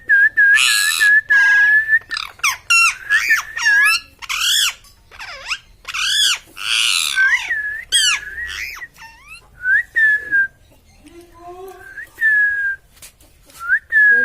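A pet parrot vocalising: a quick run of whistled chirps mixed with harsh, speech-like calls, then single short whistles every second or two.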